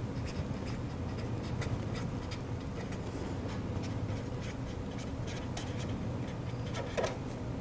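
Pen writing on a sheet in many quick, short scratching strokes, over a steady low hum.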